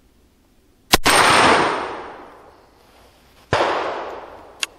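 A 19th-century percussion muzzle-loading Schützen target rifle fires a black-powder shot about a second in: one sharp bang with a long ringing tail. A second sharp bang comes about two and a half seconds later and fades more quickly, and a short click is heard near the end.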